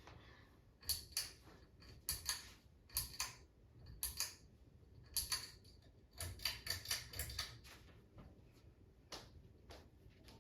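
A dozen or more sharp clicks and light knocks at uneven spacing, some in quick pairs and a cluster in the middle, over a faint low hum.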